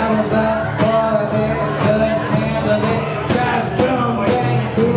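Live acoustic string band playing: acoustic guitar, mandolin and electric bass, with a steady strummed beat of about two strokes a second.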